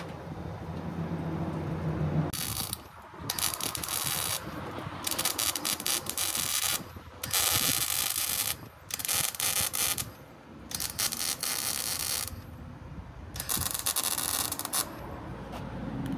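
Electric arc welding on a bus's sheet-metal wheel-arch panel: about seven short runs of crackling, sizzling arc, each a second or so long, with brief pauses between them as the panel is tacked on. A low hum comes before the first run.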